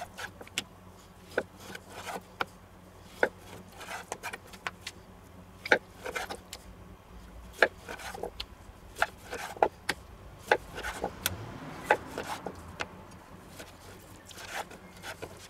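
Chef's knife slicing through a raw pork loin and striking a wooden cutting board: an irregular series of sharp taps and knocks as each steak is cut through, with soft scraping of the blade and meat between them.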